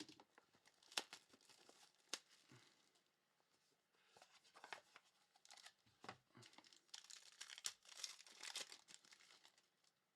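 Faint crinkling and tearing of a trading-card pack wrapper being opened, with a few sharp ticks near the start.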